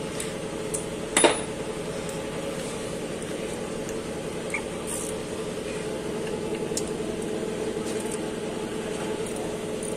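A steady mechanical hum, with one sharp click about a second in and a few faint ticks later.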